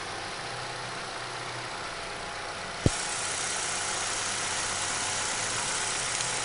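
Chevrolet car engine running steadily, with one sharp click about three seconds in, after which the hiss grows brighter.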